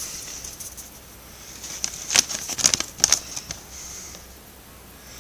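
Handling noise: a few light clicks and rustles of items being moved about, bunched together around two to three seconds in, over faint steady hiss.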